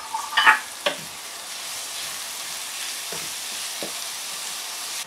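Chopped onion and grated carrot frying in butter in a pan, sizzling steadily, with a wooden spatula stirring and scraping against the pan a few times. The sizzle gets a little louder after about a second and a half.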